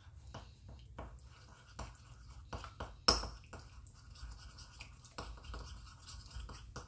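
Fingers mixing bsissa in a small ceramic bowl: soft rubbing and faint scraping ticks against the bowl, with one sharp clink about three seconds in.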